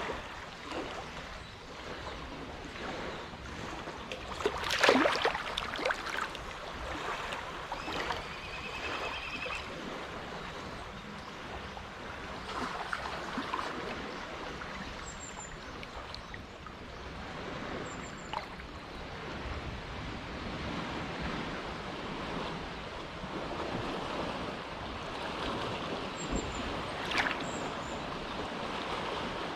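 Small, gentle waves lapping at the shore of a quiet inlet, a steady wash broken by irregular splashes, the biggest about five seconds in. A few faint high chirps are heard over it.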